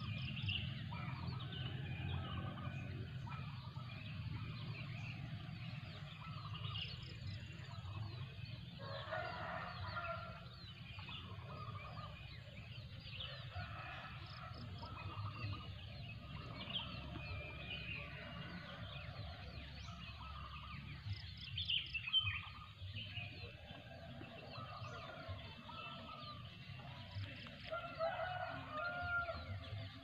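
Rural village birdsong: many small birds chirping throughout, with domestic chickens calling and a rooster crowing about a third of the way in and again near the end, over a steady low hum.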